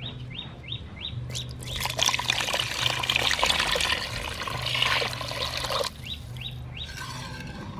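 Water poured into a metal pot of liquid mixture, splashing steadily for about four seconds, starting about two seconds in. A bird chirps in short quick rising series before and after the pour.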